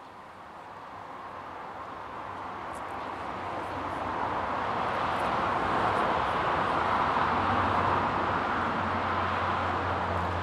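Rushing noise of a passing vehicle, swelling over about six seconds and staying loud, with a low hum coming in near the end.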